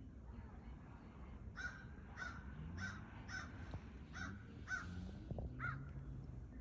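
A crow cawing seven times in a row, about two caws a second, with a short break midway.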